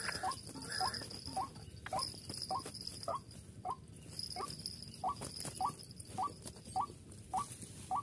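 White-breasted waterhen call: a short rising 'kwak' note repeated steadily just under twice a second, over the flapping and rustling of a waterhen struggling in a snare.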